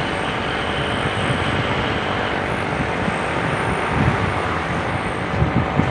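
Steady rush of wind and road noise from a moving vehicle, heard at its open side window.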